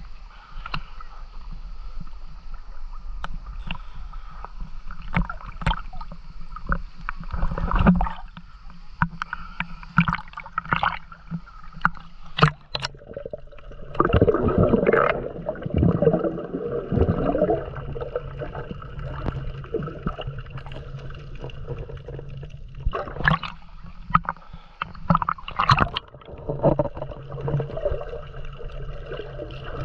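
Sea water sloshing and gurgling around a camera held half-submerged and then underwater, heard muffled, with many sharp clicks and knocks and a steady low hum underneath. The water noise swells for a few seconds about halfway through.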